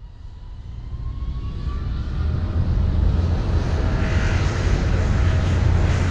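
Steady low engine rumble that fades in from silence and swells over the first three seconds, then holds level.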